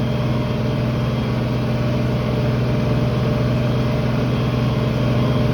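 Tractor engine running steadily while pulling a field cultivator, heard from inside the cab with the cab air conditioner blowing.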